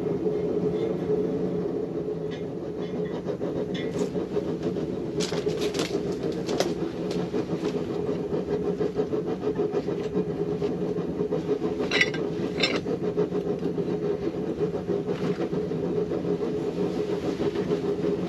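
Blacksmith's forge running with a steady, even roar, a few sharp knocks sounding over it.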